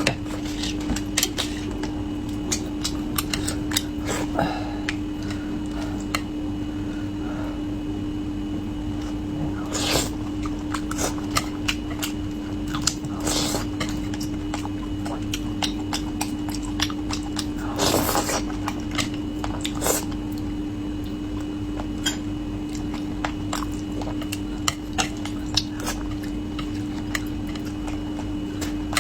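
Someone eating braised carp: chewing and biting, with frequent short clicks of utensils on dishes and a few longer noisy eating sounds, over a steady low hum.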